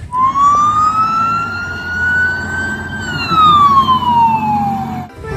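Police car siren giving one slow wail: the pitch rises for about three seconds, then falls for about two and cuts off just before the end, over a low steady rumble.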